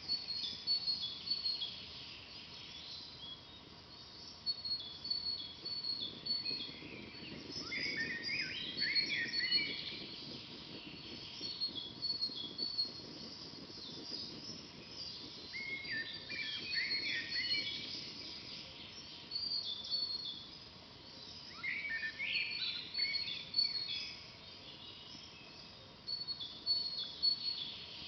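Several forest birds singing: quick, high chirps repeat throughout, and three times (about 7, 16 and 22 seconds in) a lower, busier warbling song rises over them for a couple of seconds.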